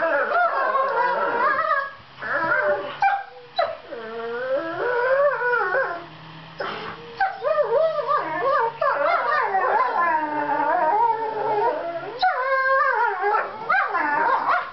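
Two borzoi puppies making high, wavering whining, howl-like vocalizations while they play-fight, in long stretches broken by short pauses. This soft 'sweet noise' signals that their snarling faces are only play and not a real threat.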